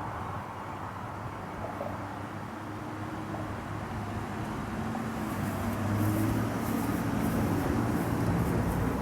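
Road traffic with a motor vehicle going by: an engine hum that shifts in pitch and grows louder about halfway through. Wind buffets the microphone in the second half.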